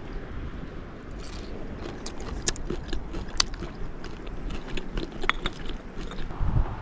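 Close-up eating sounds: chewing, with small sharp clicks and scrapes as fingers work food out of a seashell, over a low wind rumble.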